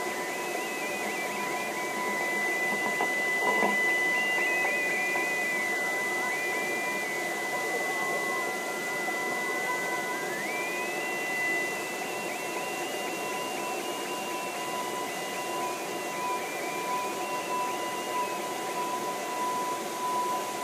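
Short-wave radio and live electronics in an improvised noise piece: a steady tone with a second tone an octave above, and a thin whistle that wavers, slides and steps in pitch over a hiss. The whistle dips about six seconds in and jumps up again about ten seconds in.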